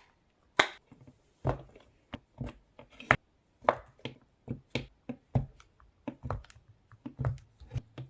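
A popping fidget toy being pressed over and over: a string of sharp pops at an uneven pace, roughly one to three a second, some carrying a dull thud beneath.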